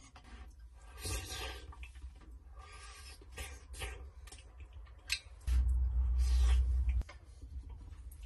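Small scattered clicks and rustles of a man eating with chopsticks from a steel pot. About five and a half seconds in, a low rumble starts, lasts about a second and a half, and cuts off suddenly.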